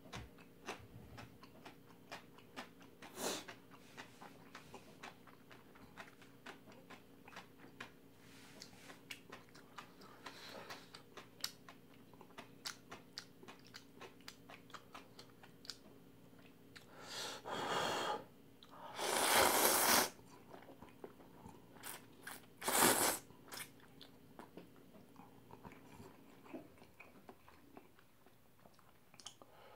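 Close-up chewing and wet mouth clicks of someone eating, with three loud noodle slurps starting about 17 s in, the last around 23 s.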